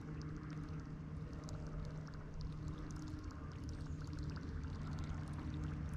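Gentle water gurgling and lapping with scattered small ticks, over a steady low hum.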